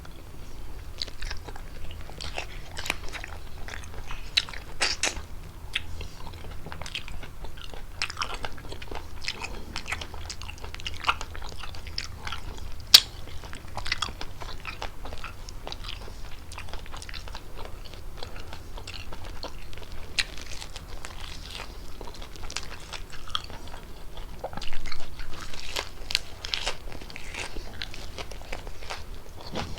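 Close-miked chewing and biting of fettuccine with chicken: many short, irregular wet mouth clicks and smacks, with one sharp click about 13 seconds in and a louder stretch of chewing near the end.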